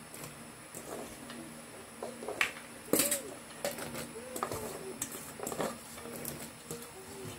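A spoon clinking and scraping against a metal wok as papaya pieces are dropped into the stew and stirred, the sharpest clink about three seconds in. A few short cooing calls, like a dove's, come in the background.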